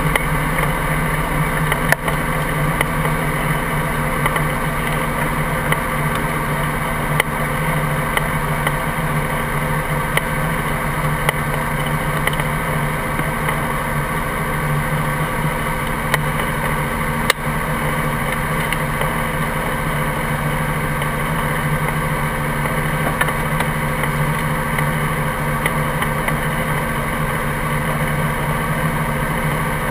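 Helicopter running on the ground, a steady engine and rotor drone with a few sharp clicks, one about two seconds in and one past the middle.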